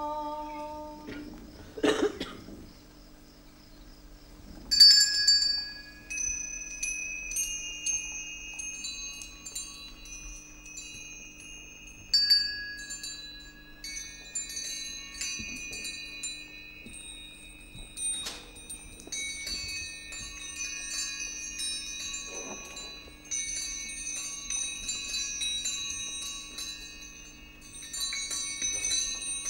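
High chiming tones, struck one after another at several pitches and left to ring so that they overlap, over a steady low hum. A brief sound comes about two seconds in.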